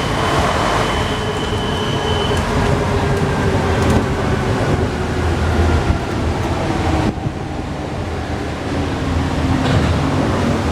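Alstom NS-93 rubber-tyred metro train running, with a whine that falls slowly in pitch as it slows. About seven seconds in, the high hiss drops away abruptly, leaving a steadier low rumble.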